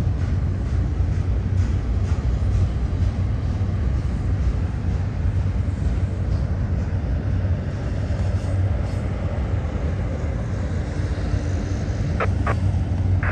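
Two long diesel-hauled double-stack freight trains climbing a steep grade side by side, giving a steady low rumble. Two short sharp clicks sound near the end.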